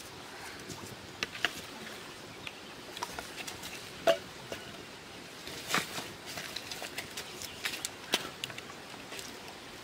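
Small wood campfire crackling with irregular sharp pops, while dry sticks knock and scrape as they are pushed into the flames.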